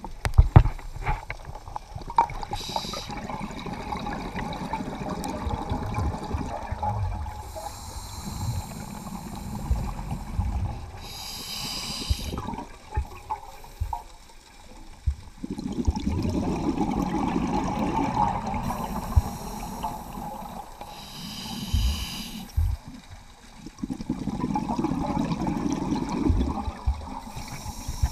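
Scuba diver breathing through a regulator underwater: short hissing inhalations and long, low bubbling exhalations every several seconds. Scattered low knocks run through the first part.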